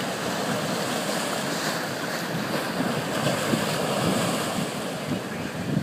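Ocean surf breaking and washing up the sand and over a boulder at the shoreline, a steady rushing wash of water, with wind buffeting the microphone.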